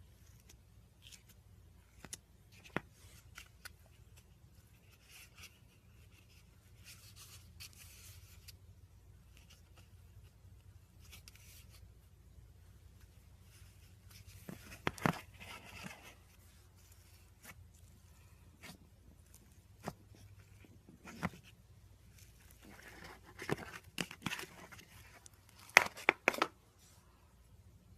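Scattered taps and clicks with short crackling, tearing-like bursts from hands working slime and its materials at close range. The loudest bursts come about halfway through and again near the end.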